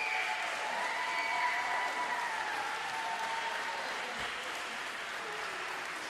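Audience applauding at the end of a choir song, the clapping easing off slowly.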